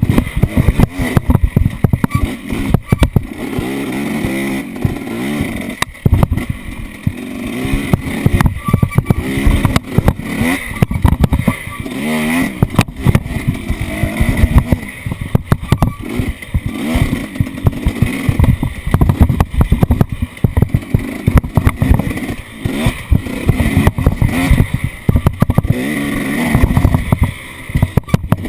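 An off-road vehicle's engine running and revving, its pitch rising and falling, with frequent knocks and rattles as it is driven over rough ground.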